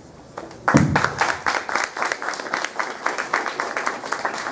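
Audience applauding, starting a little under a second in: many hands clapping in a dense, uneven patter.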